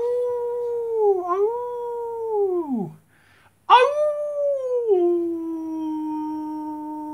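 Two long, wolf-like howls. The first is held on one note with a brief dip about a second in and falls away near three seconds; the second starts about a second later, rises, then drops to a lower note and holds it.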